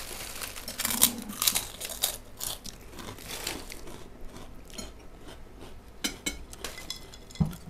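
Someone biting and chewing crisp kerupuk crackers close to the microphone: a run of sharp crunches, densest in the first three seconds or so, then sparser.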